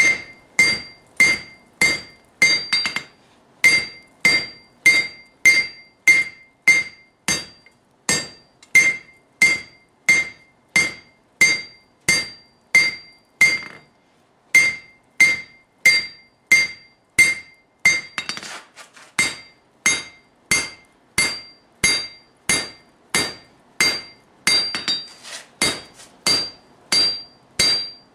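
Hand hammer striking a hot steel billet on an anvil, about two ringing blows a second, drawing out a forge-welded damascus billet. The blows break off briefly twice, about three and fourteen seconds in.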